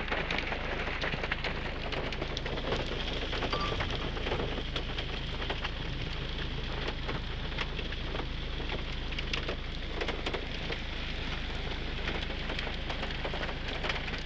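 Steady rain falling, with many sharp raindrop taps close by, over the even rush of muddy runoff flowing across rock ledges.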